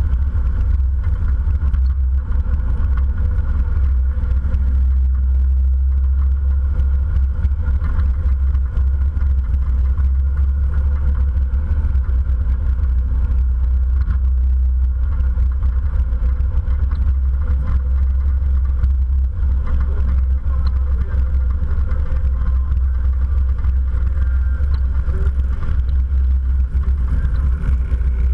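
Motorcycle cruising at a steady speed: the engine runs under a steady, deep rumble of wind buffeting the microphone, with no break or change in pace.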